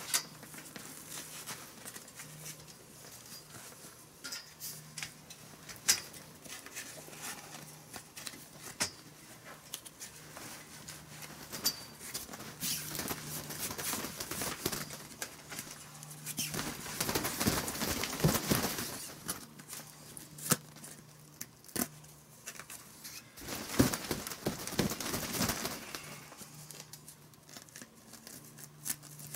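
Polyethylene carport cover rustling and Velcro straps being pulled apart and pressed on as they are fastened under the steel frame's base rail, with scattered small clicks and knocks. Two longer stretches of rustling and ripping come past the middle and again later.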